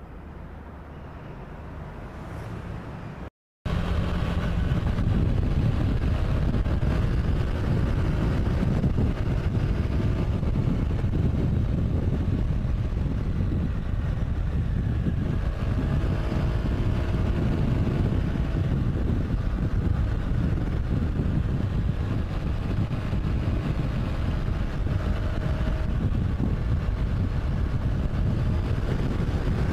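Motorcycle riding heard from the bike: loud, steady wind rush and road noise on the microphone, with the engine's note faintly rising and falling underneath. A quieter opening stretch cuts off to a moment of silence about three seconds in before the riding sound begins.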